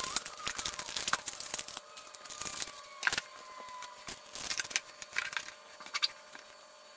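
Plastic parts bag crinkling and rustling as it is handled, with irregular light clicks and taps of small plastic parts, such as spare rotor blades, being set down on a table.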